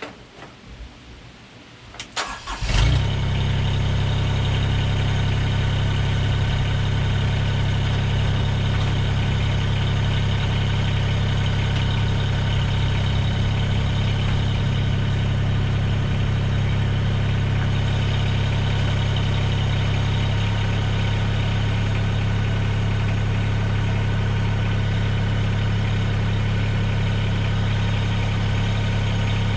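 Mahindra eMax 20S HST tractor's three-cylinder diesel engine cranking and catching about two to three seconds in, then idling steadily, its tone shifting slightly about twenty seconds in.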